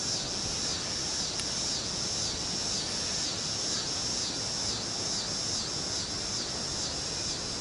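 Insects singing in a high, evenly pulsing drone, about two pulses a second, over a steady outdoor hiss.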